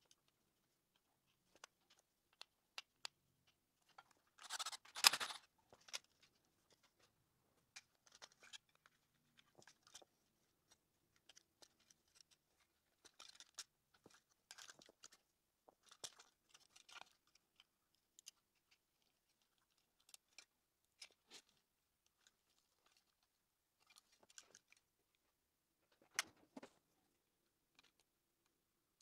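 Faint, scattered clicks and rattles of the hard plastic housing of a Roomba 670 wheel module being handled and worked apart with hand tools, with a louder clatter about five seconds in and a sharp click near the end.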